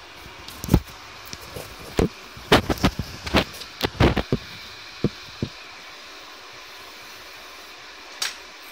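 Handling noise from the recording phone being picked up and repositioned: a run of sharp knocks and bumps over the first five seconds, then a steady faint hiss, and one more knock near the end.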